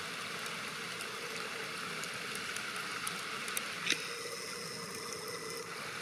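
River water flowing steadily, an even rushing.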